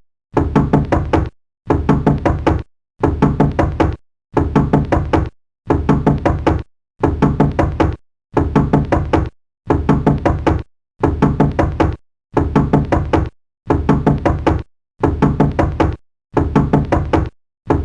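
Knocking on a door in quick bursts of several knocks, each burst about a second long with a short silence between, repeating evenly about every 1.3 seconds.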